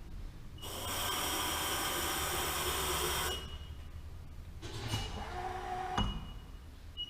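Bridgeport CNC mill's table being jogged under its ProtoTrak control: a loud hissing whir for about three seconds, then quieter running. Short high beeps come several times, with a brief motor whine and a thump about six seconds in.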